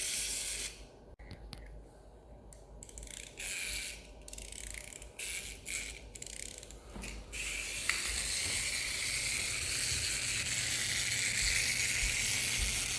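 Clicking and ratcheting of a toy aeroplane's plastic mechanism being worked by hand, scattered clicks at first, then a steady whirring hiss from about seven seconds in.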